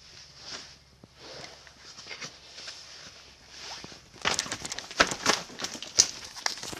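Footsteps crunching through dry leaf litter: soft steps about once a second, then a denser run of sharp crackles and crunches from about four seconds in.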